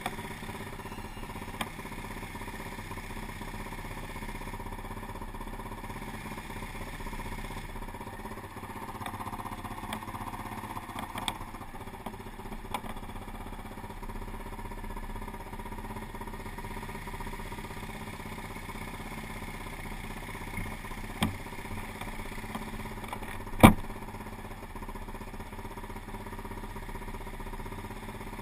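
Quad bike (ATV) engine idling steadily while stopped, with a few light clicks and one sharp knock late on.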